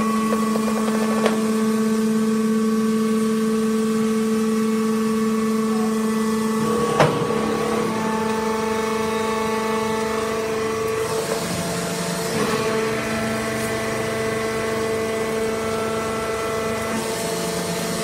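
Hydraulic wood-shavings bagging baler running, its motor-driven pump giving a steady hum. A sharp knock comes about seven seconds in, and the hum shifts in pitch a few times, with a hiss, in the second half.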